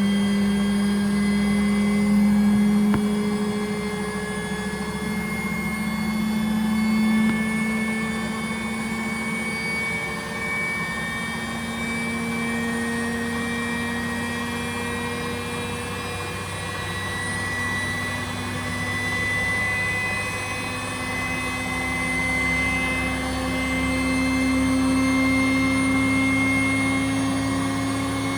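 BEKO washing machine's drum motor running during its service test, a steady motor whine that drifts slowly in pitch, dipping around the middle and rising toward the end.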